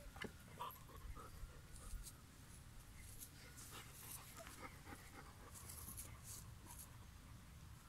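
Faint rustling and scratching as a young puppy chews and tugs at toys on the grass, with a few soft clicks.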